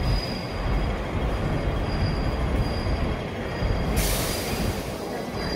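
Hong Kong double-decker electric tram moving slowly along its street track: a low rumble of wheels on rail with a faint, thin wheel squeal that comes and goes. A brief hiss starts about four seconds in.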